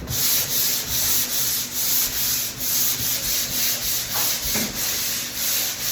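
Sanding dried drywall joint compound on a wall: a rhythmic scratchy hiss, in strokes about two a second.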